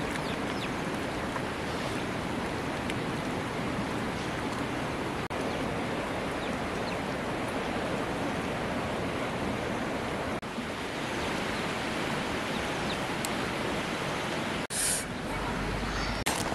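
A steady, even rushing hiss with no distinct events, briefly dropping out a few times, with a short sharper high hiss about fifteen seconds in.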